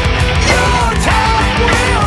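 Loud hard-rock music with a lead melody line that bends and wavers over a dense, full-band backing.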